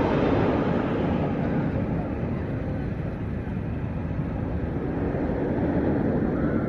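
A Bolliger & Mabillard inverted roller coaster train running along its track with the deep B&M roar, which comes from the hollow steel track. The roar eases slightly midway and builds again near the end.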